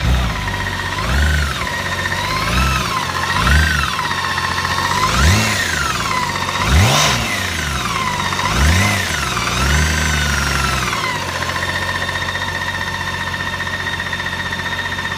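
2013 BMW K1600GTL's inline-six engine running, blipped about seven times with the pitch rising and falling, then idling steadily from about eleven seconds in. Through it there is a loud knock in the engine that a replaced clutch plate has not cured; the owner suspects a piston, rod or rocker.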